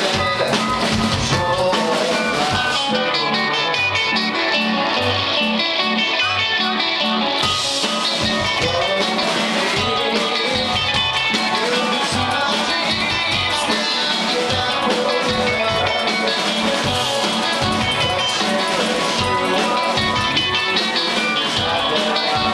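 A live rock band playing a song with electric guitars, bass guitar, keyboard and a drum kit, with a steady beat throughout.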